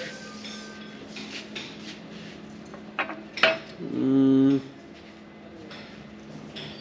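Loose metal motorcycle rack parts and bolts clinking as they are handled, with two sharp clicks about three seconds in. A short, louder steady hum comes about four seconds in.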